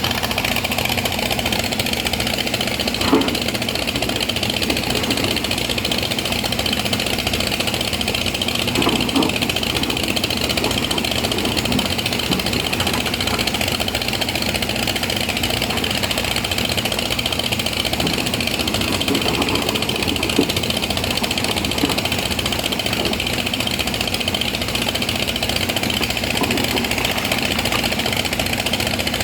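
Excavator's diesel engine running steadily, with a few short knocks about three seconds in, around nine seconds and again about twenty seconds in.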